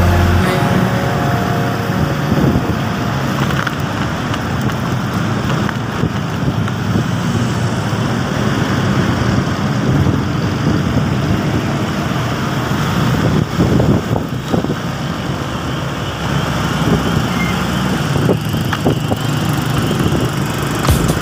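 A motorcycle on the move, heard through a phone's microphone: a steady rush of wind and road noise with the engine's low hum underneath, and a few short knocks about two-thirds of the way through.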